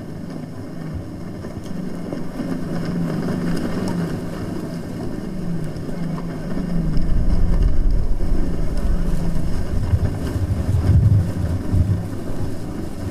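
Low rumble of wind buffeting the microphone, growing stronger about halfway through, with uneven surges.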